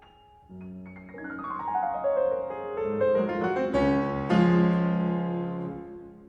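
Piano music: a run of notes starting about half a second in, growing louder, then dying away near the end.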